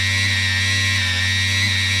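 3D-printed RC outboard's electric motor and brass bevel gears running with a steady whine at a held part-throttle, its pitch wavering only slightly. It is being run in on freshly greased gears and is holding an even speed as they settle in.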